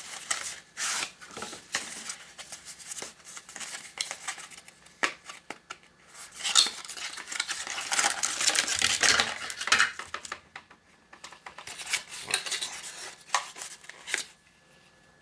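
A wireless doorbell kit being unpacked from its box: packaging rustling, with small parts clicking and clattering as they are handled. The rustling is busiest about halfway through.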